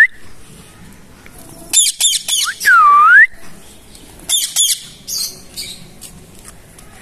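Rose-ringed parakeet screeching in two bursts of rapid squawks, about two seconds in and again past four seconds. Between the bursts comes one loud swooping whistle that dips in pitch and rises again.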